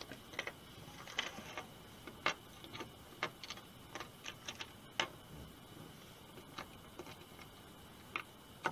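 Faint, irregular small clicks and taps from fingers handling a small circuit board and tiny M2 bolts while trying to push the bolts through the board's holes.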